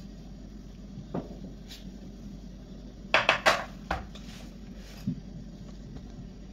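Kitchenware being handled: sharp knocks and clinks, one about a second in, a quick run of four near the middle and two more after, over a steady low hum.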